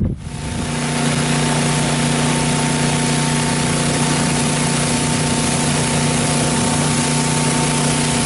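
Gas-engine pressure washer running steadily, its motor hum under the loud hiss of the high-pressure water jet spraying against a lawn tractor's wheel and frame. It builds to a constant level within the first second.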